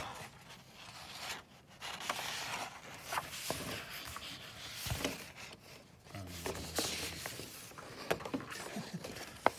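Sheets of drawing paper rustling and sliding under a hand, in irregular scrapes with a few small taps.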